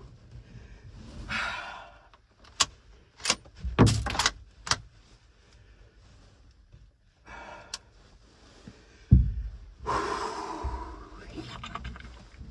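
A single rifle shot from a 7mm-08 about nine seconds in, fired inside a small wooden box blind, after several sharp clicks and knocks of handling. It is followed by loud gasping breaths.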